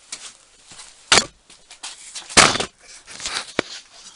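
A drawer running on small bearings being worked: two short knocks about a second apart, then a sharp click near the end as it is pushed shut.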